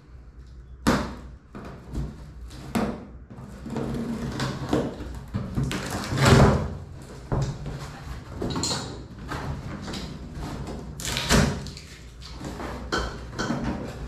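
Cardboard box being opened by hand: packing tape cut and pulled, the cardboard flaps scraping, rustling and being folded back, with several sharp knocks, the loudest about six seconds in.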